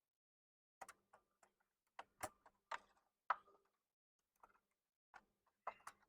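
Scattered light clicks and taps, about a dozen at irregular intervals, from plastic printer parts and rollers being handled. The sound is otherwise near silent.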